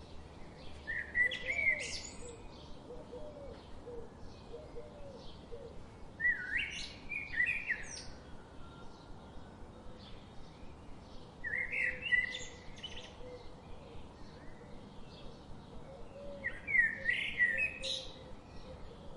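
A songbird sings a short phrase of quick up-and-down whistled notes four times, about every five seconds. Fainter high chirps run between the phrases.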